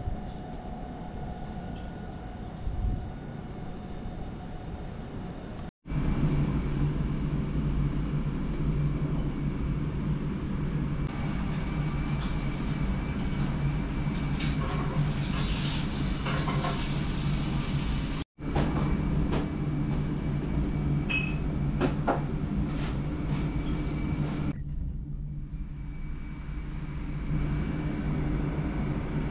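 A steady low rumbling hum with occasional light clicks, cut off abruptly twice.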